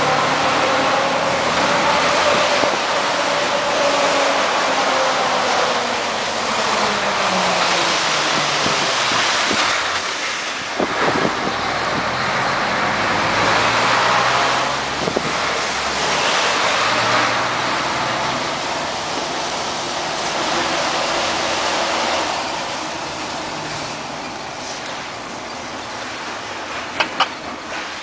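Mercedes-Benz Actros 1848 truck's V6 diesel engine heard from inside the cab while driving, its pitch falling and rising with the gear changes over tyre and road noise. It quietens near the end as the truck slows, and two sharp clicks come just before the end.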